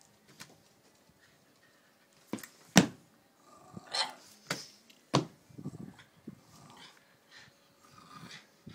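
Staffordshire bull terrier giving about five short, sharp barks over a few seconds, the loudest about three seconds in, then quieter, lower noises.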